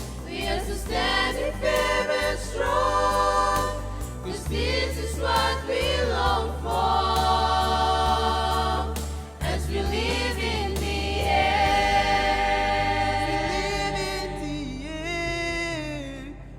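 A youth choir singing a gospel song in harmony, with long held chords, over a steady low bass accompaniment.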